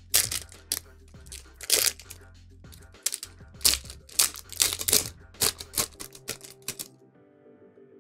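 Foil trading-card pack wrapper crinkling and tearing as it is worked open by hand: a rapid, irregular run of sharp crackles that stops about seven seconds in. Quiet background music underneath.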